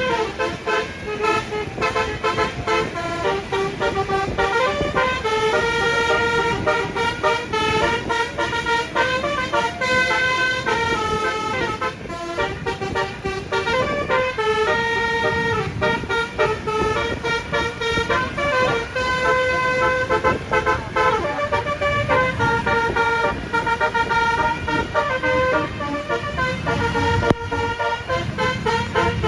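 Basuri telolet multi-tone horn on a bus playing a quick melody of stepping horn notes without a break, over a low engine and road rumble.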